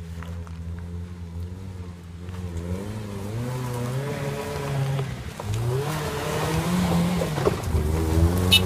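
First-generation Toyota RAV4's engine under load climbing a hill off-road: steady at first, then revving up and down repeatedly and growing louder. A brief sharp click near the end.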